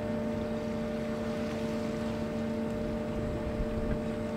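Steady machinery hum with several fixed pitches over a constant low rumble, unchanging throughout.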